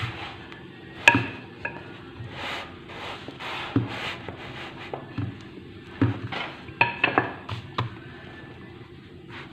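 Wooden rolling pin rolling out pizza dough on a stone countertop: soft rubbing swishes broken by sharp wooden knocks against the counter, the loudest about a second in and several close together around six to seven seconds in.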